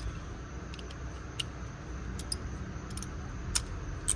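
Hand tools clinking: scattered light metallic clicks and taps over a low steady rumble.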